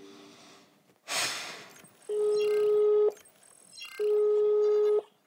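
A short rushing whoosh about a second in, then a phone's outgoing-call ringing tone: two long steady beeps, each about a second long, with about a second's pause between them.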